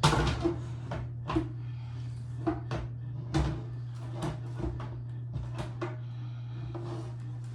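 Scattered light clicks and knocks as computer parts and screws are handled, over a steady low hum.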